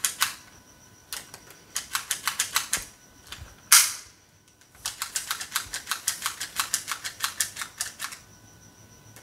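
Hand-worked pistol-style speed loader clicking as it pushes gel balls into a gel blaster magazine, in runs of quick clicks about six a second, with one short, louder rasp a little before the middle.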